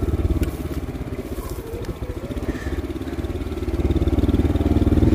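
Motorbike engine running, dropping back about a second in and picking up again around four seconds in.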